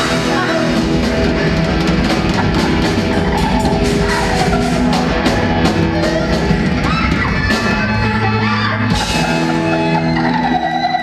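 Rock band playing loud live: a Mapex drum kit pounding with dense cymbal crashes under sustained electric guitar chords.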